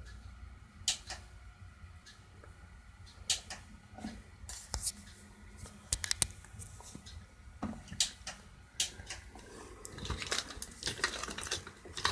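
Scattered sharp clicks and light knocks of small objects being handled, with a denser run of crackling about ten seconds in.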